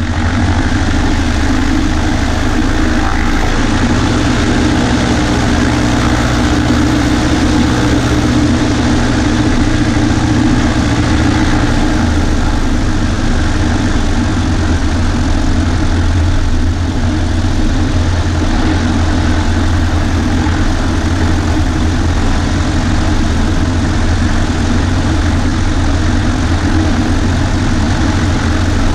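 Cessna 140A's piston engine and propeller running steadily, with a slight change in the engine note about twelve seconds in.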